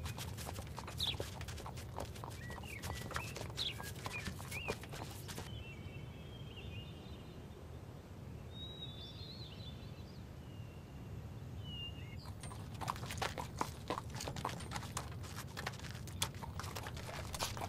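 Hooves of laden pack animals and people's footsteps clopping on a stony mountain path, with short bird chirps. About five seconds in the steps fade out, leaving only scattered chirps, and the clopping returns after about twelve seconds.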